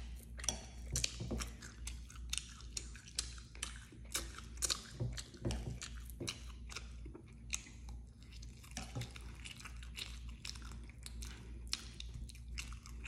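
Close chewing of a mouthful of soft, mashed food, heard as a dense, irregular string of small mouth clicks.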